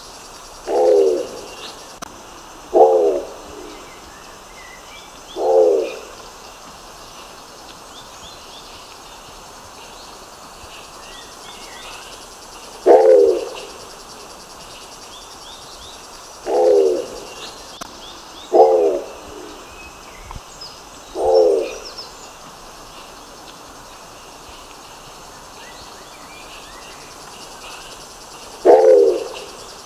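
Nicobar pigeon calling: eight short, low calls, each sliding down in pitch, spaced irregularly with a long pause about midway. Faint high chirps of other birds and a steady hiss of insects run underneath.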